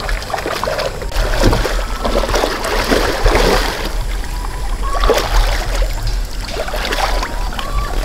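Pond water sloshing and splashing in uneven swells as people wade through a catfish pond catching fish by hand, with a steady low rumble underneath.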